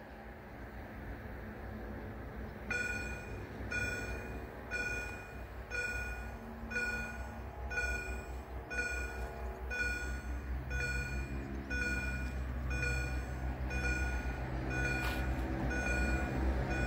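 EHL-S10 electronic level-crossing bells sounding a two-tone ding about once a second, starting about three seconds in: the warning that a train is approaching and the barriers are about to lower. A low rumble builds beneath it from about ten seconds in.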